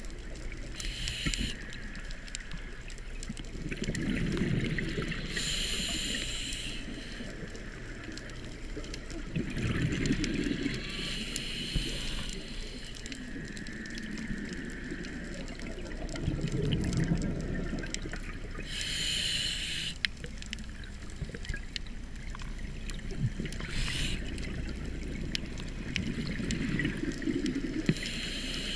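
Scuba diver breathing through a regulator underwater: a short hiss with each inhalation, then a longer low bubbling rumble as the exhaled air bubbles out. The cycle repeats about every five seconds.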